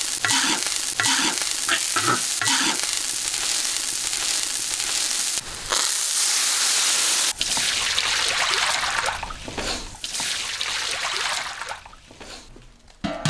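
Food sizzling in hot oil in a large iron wok, with a metal spatula scraping and stirring against the wok several times in the first couple of seconds. The sizzling stays loud for several seconds, then fades away near the end.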